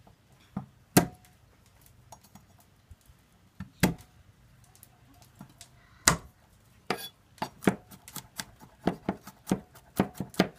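Kitchen knife coarsely chopping garlic cloves on a wooden cutting board. A few separate knocks come first, then from about seven seconds in a steady run of chops, two or three a second.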